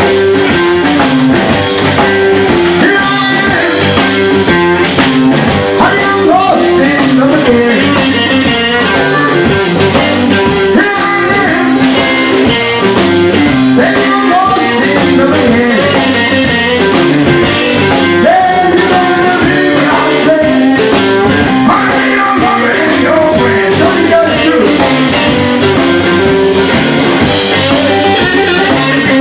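Live electric blues band playing a song: electric guitar, electric bass and drum kit, with a bending lead line carried over the microphone.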